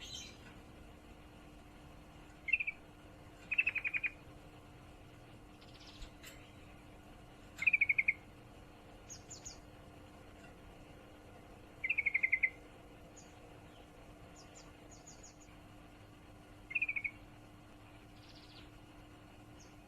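Female yellow-vented bulbul giving short bursts of rapid chattering notes, the 'ngriwik' call of a hen in breeding condition calling a male. There are five bursts, each under a second long and spaced several seconds apart. Faint high chirps sound in between.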